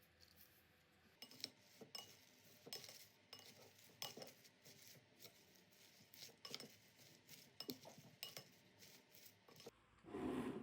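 Kitchen utensils clicking against a dish in a series of irregular light taps, with a louder noise lasting about half a second near the end.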